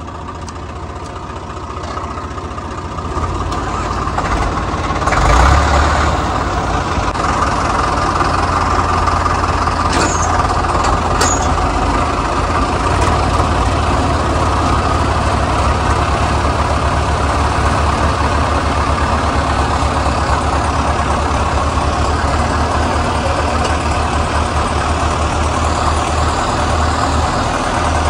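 Diesel tractor engines of a Swaraj 855 and a 5911 working hard under load, hauling a fully loaded trolley up an incline. The engine note builds over the first few seconds and then holds steady and loud. Two short sharp clicks come about ten and eleven seconds in.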